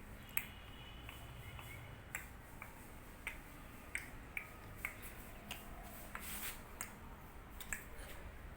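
Sharp 'tak tak' clicks, a dozen or so at irregular spacing, over a faint steady background.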